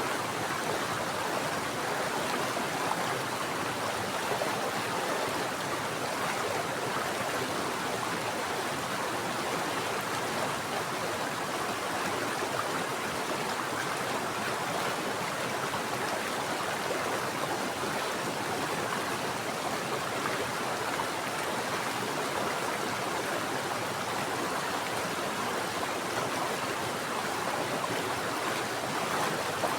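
A mountain stream of running water rushing over rocks, a steady even noise with no breaks.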